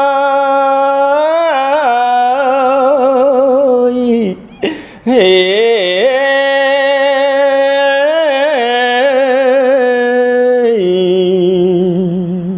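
A Buddhist monk's solo male voice chanting Khmer smot. He holds long sustained notes decorated with wavering melismatic turns, pauses briefly for breath about four and a half seconds in, and settles onto a lower held note near the end.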